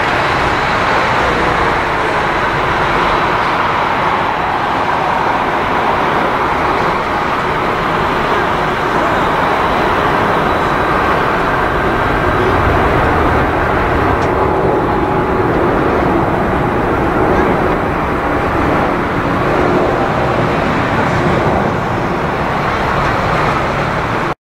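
Turbofan engines of an Airbus twinjet running at low thrust as it taxis onto the runway: a steady rushing jet noise with a thin high whine over it.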